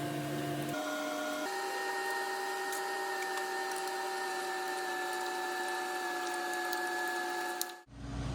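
A steady, whining mechanical hum with a few fixed tones. It jumps to a higher pitch about a second in and again about a second and a half in, then holds steady, and cuts out abruptly for a moment near the end.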